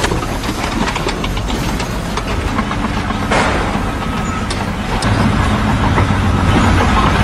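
Heavy machinery engine running, with scattered clanks and knocks. The sound changes abruptly about three seconds in and again about five seconds in, when a low steady hum comes up.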